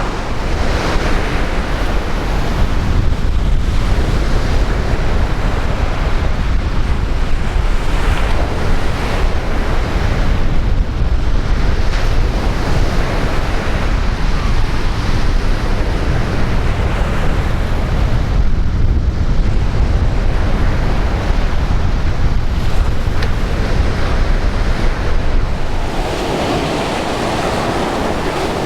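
Sea waves breaking on the shore in surges every few seconds, with strong wind buffeting the microphone.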